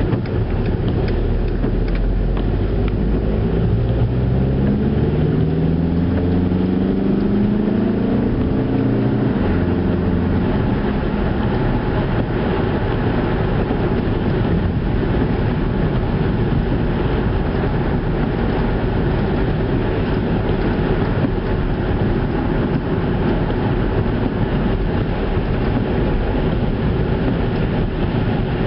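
Skoda Octavia car running on the road: engine and tyre noise throughout, with the engine note climbing through the first ten seconds or so as it picks up speed, then running steadily.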